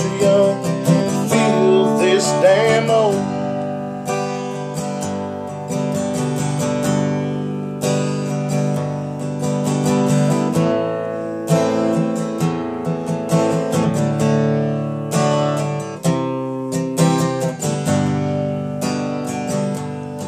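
Steel-string acoustic guitar strummed in a steady country rhythm as an instrumental break. A man's singing voice holds and trails off over the first few seconds, then the guitar plays alone.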